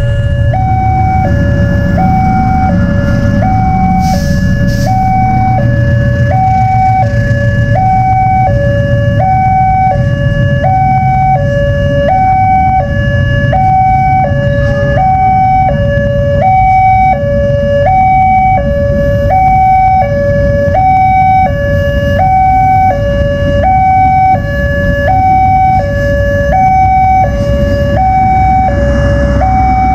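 Railway level-crossing warning siren from the crossing post's horn speaker, sounding a steady alarm that alternates evenly between a lower and a higher tone, each held under a second. Under it, a passenger train passing through the crossing gives a steady low rumble.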